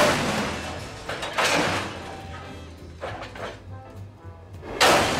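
Music with four loud crashing hits, each fading away, about every one and a half seconds.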